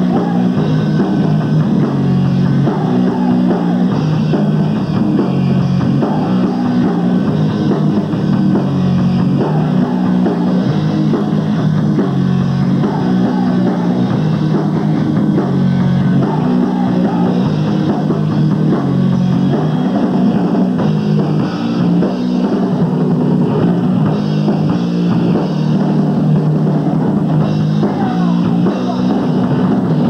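Live rock band playing loud and without a break: drum kit, electric guitar and bass.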